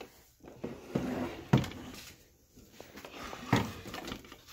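A few sharp knocks and clunks of handling close to the microphone, the loudest about a second and a half in, with faint rustling between them.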